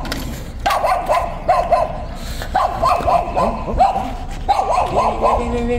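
Pit bull whining and yipping in quick short high notes, several a second.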